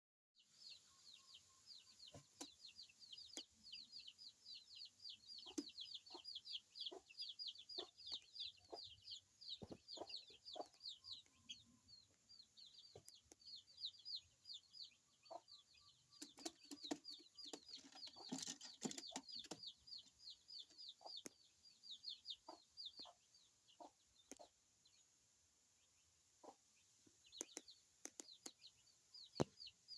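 Pigeon squabs begging while a parent feeds them: rapid high-pitched peeps, several a second, broken by a brief pause near the end, with scattered light knocks.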